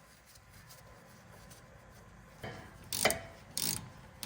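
Hand ratchet clicking in short back-and-forth strokes, tightening the brake caliper screws. Quiet for the first half, then three or four quick ratcheting strokes.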